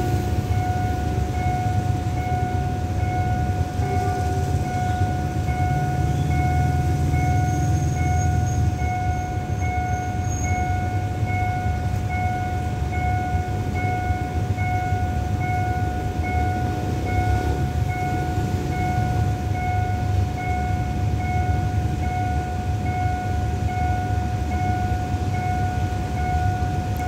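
Railway level crossing warning signal sounding a steady electronic tone, held without a break, over a low engine rumble from traffic and the waiting train.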